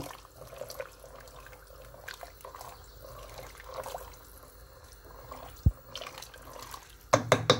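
A wooden spoon stirring spiced cooking liquid in a stainless pressure-cooker pot, with soft sloshing and dripping. There is one sharp thump about five and a half seconds in, and a few loud knocks near the end.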